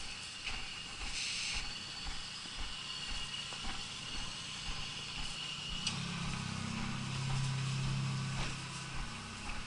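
Footsteps walking along a street, heard as regular soft thumps, with a low vehicle engine hum coming in about six seconds in and fading near the end.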